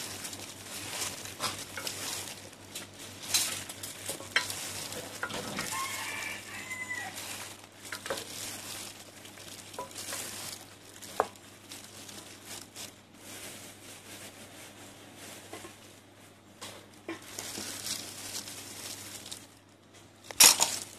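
Gloved hands tossing and squeezing shredded boiled chicken in a stainless steel pot: thin plastic gloves crinkling and meat squelching, with scattered sharp clicks against the pot. A rooster crows faintly in the background about six seconds in.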